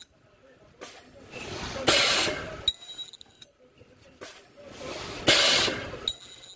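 Ultrasonic welding machine for sponge scourer pads working in a repeating cycle about every three seconds. Each cycle is a short burst of air hiss followed by a loud, very high-pitched whine of under a second as the ultrasonic horn welds, and the whine cuts off abruptly.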